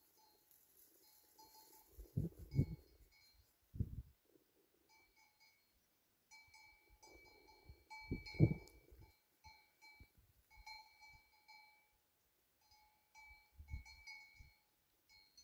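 Livestock bells clinking and ringing faintly and on and off, as from a grazing flock of goats or sheep. A few short low rumbles on the microphone come in between, the strongest about halfway through.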